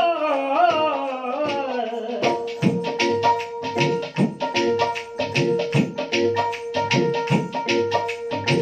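Live Punjabi folk song: a singer holds a wavering note that glides downward over the first two seconds. A steady rhythm of hand-drum strokes then carries on over a sustained drone note.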